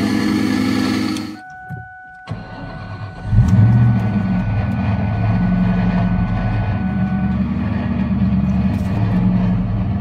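Mustang SVT Cobra's supercharged V8 idling. After a sudden cut, a steady electronic warning tone sounds while the engine is started about three seconds in and settles into a rhythmic idle. The engine has a seized water pump pulley bearing.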